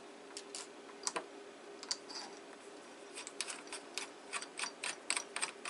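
Light clicks and ticks of a Crosman 2240 air pistol's barrel and barrel band being handled and shifted during fitting: a few scattered clicks, then a quicker run of about four clicks a second in the second half, over a faint steady hum.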